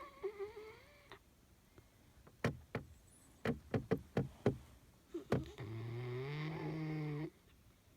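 Sleeping 12-week-old Newfoundland puppy snoring: a long, steady snore near the end, slowly rising in pitch, with a shorter, higher, wavering sound at the start. In between comes a quick run of about eight sharp knocks.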